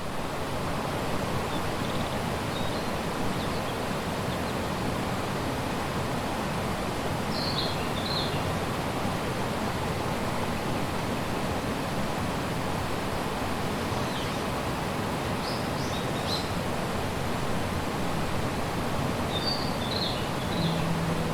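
Mountain stream flowing with a steady rush of water. A small bird calls in short, high chirps three times: about a third of the way in, around two-thirds in, and near the end.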